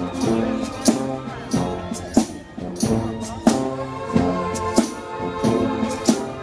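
A marching brass band playing: a sousaphone bass line under the horns, with sharp percussion hits about every half second to a second.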